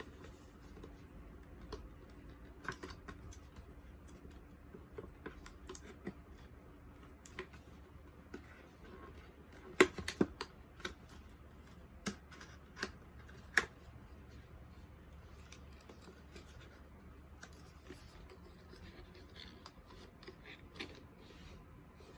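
Unboxing handling noise: scattered light clicks, taps and scratchy rustles of packaging and study books being handled, with a cluster of sharper clicks about ten to fourteen seconds in.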